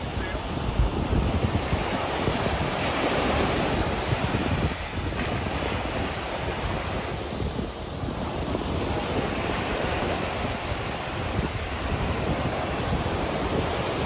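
Small Caribbean waves breaking and washing up a sandy shore, the surf swelling and easing every few seconds, with wind buffeting the microphone.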